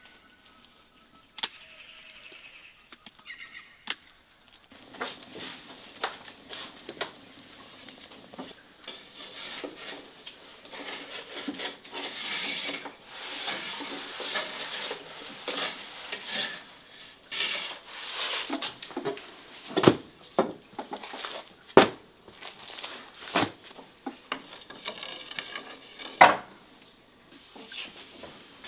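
Kitchen work during bread-making: an irregular clatter of utensils and dishes knocking and scraping, with a few sharp, loud knocks in the second half.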